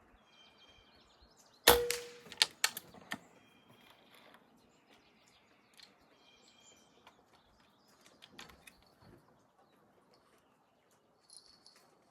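A single shot from a moderated Benjamin Armada PCP air rifle about two seconds in, a sharp crack with a short ring after it, followed by a few quick clicks over the next second and a half. Birds chirp in the background.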